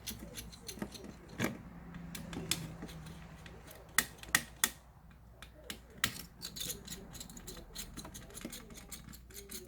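Irregular small clicks and taps of tools and parts being handled while a laptop is dismantled, with three sharp, louder ticks close together about four seconds in.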